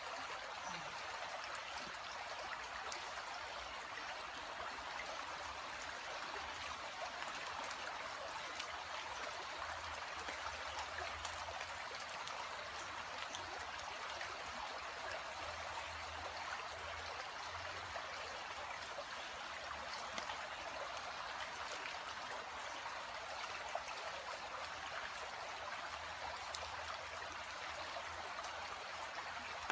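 Shallow stream running steadily around a person crouched in it, a continuous, even water sound.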